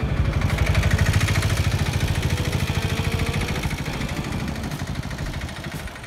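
Water flowing fast over a grassy field, with an engine running close by: a rapid, even pulsing that is loudest about a second in and slowly fades toward the end.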